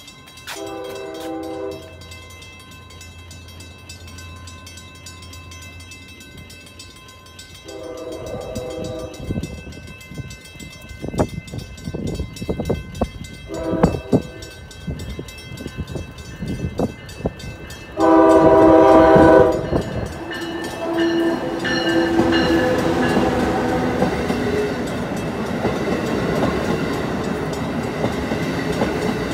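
Amtrak Acela trainset's horn sounding the grade-crossing signal on approach: long, long, short, then a final long blast, the last one the loudest. The train then passes close by with a steady rumble and wheel clatter.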